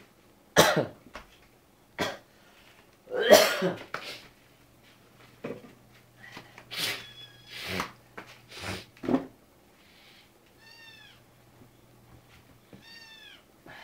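Several short, sharp noisy bursts, the loudest about three seconds in, then a cat meowing twice near the end, each a short arching cry.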